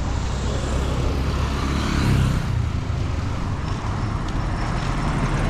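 Road traffic and vehicle noise: a steady low rumble of engines and tyres, swelling briefly about two seconds in.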